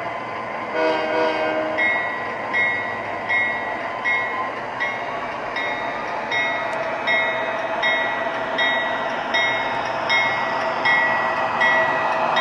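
Sound system of an MTH O-scale BNSF diesel locomotive model: a short horn blast about a second in, then the locomotive bell ringing about once every three-quarters of a second, over the steady running sound of the engine and wheels on the three-rail track.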